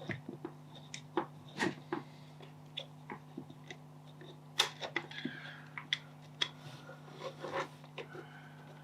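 Scattered small clicks and taps of plastic headphone parts being handled and fitted together, as the microphone is put back into the earcup housing.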